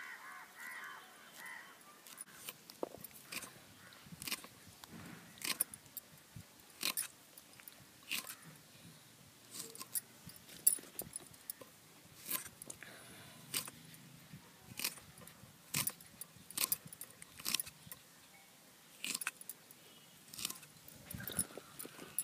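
Small knife cutting through fresh okra pods by hand, each cut a sharp, crisp click, repeated irregularly about once a second.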